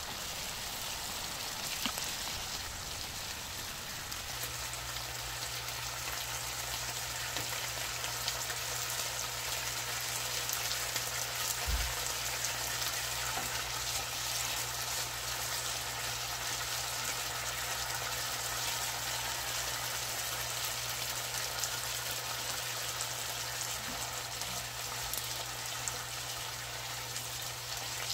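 Chop steak of beef cubes, onion and zucchini in sauce sizzling steadily in a frying pan as it is stirred with a wooden spatula. A low steady hum joins about four seconds in, and there is one dull thump about halfway.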